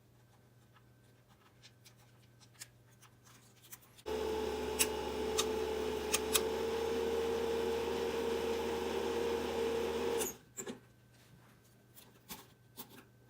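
A 1970s 8mm film projector's motor and mechanism running: a steady hum and whirr that starts abruptly about four seconds in and cuts off about six seconds later, with a few sharp clicks. Small handling clicks come before and after it.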